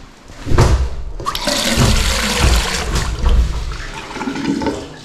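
A flush toilet being flushed: a rush of water that builds over the first second and a half and tails off near the end.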